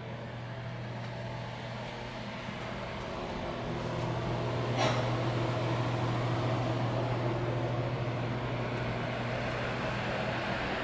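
Steady low hum of indoor room noise with a hiss above it, growing a little louder about four seconds in, and a single sharp click about five seconds in.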